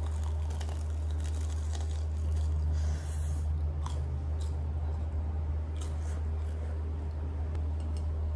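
Crunching and chewing of a breaded cheese corn dog bitten close to the microphone, a few crisp crackles scattered through, over a steady low hum.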